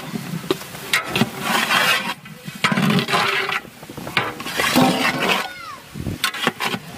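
Long metal ladle stirring sliced mushrooms and tomatoes through masala in a large aluminium pot: irregular scraping against the pot with sharp clinks of metal on metal.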